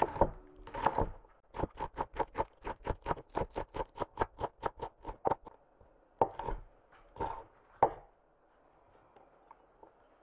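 Chef's knife chopping green onion on a wooden cutting board: a few strokes, then a quick steady run of about five chops a second, then three slower single chops before it stops.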